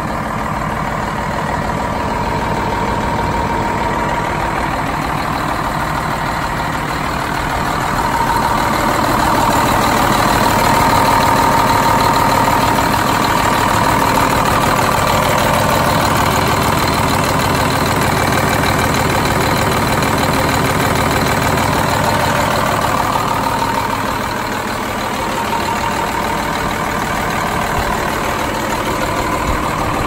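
2004 International 5500i concrete mixer truck's diesel engine idling steadily, growing somewhat louder from about 8 seconds in and easing back down a little before the end.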